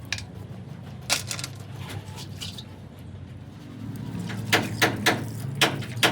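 Sharp clicks and knocks of tools on metal parts, one or two at first, then about five in quick succession past the middle, over a low steady hum.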